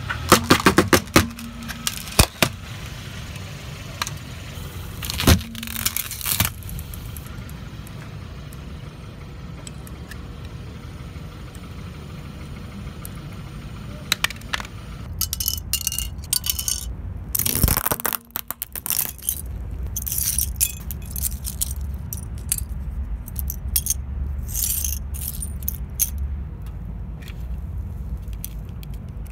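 Hard plastic toy cracking under a car tyre, with sharp snaps and rattling of plastic pieces, and later a long run of small plastic clicks as toy parts are handled and folded, over a steady low rumble.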